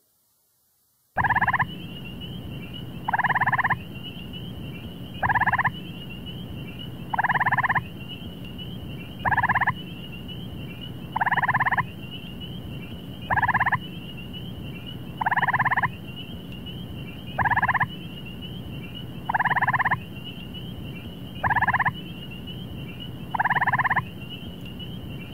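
Gray treefrog calls: loud trills repeated about every two seconds, twelve in all, alternately longer and shorter, starting about a second in. A steady high-pitched drone and a low hum run under them.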